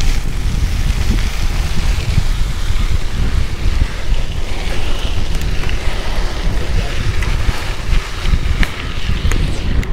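Wind buffeting the action camera's microphone in a loud, gusty low rumble while riding a gravel bike fast on a dirt road, with the tyres rolling over loose gravel. A few sharp ticks come near the end.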